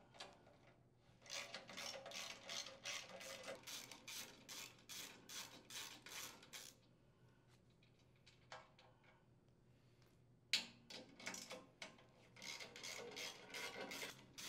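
Socket ratchet wrench clicking in quick, regular strokes, about three or four a second, as engine mounting bolts are backed out. It comes in two runs with a pause of a few seconds between them.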